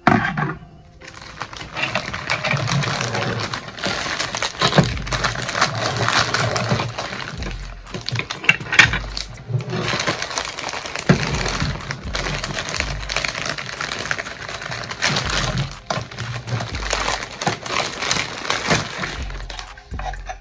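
Clear plastic packaging bags crinkling and rustling as toy-gun parts are pulled out and handled, over background music with a steady bass beat.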